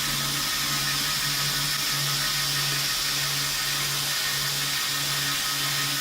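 Homemade belt grinder running, with a steady hiss from the sanding belt and a low hum that pulses a little under twice a second.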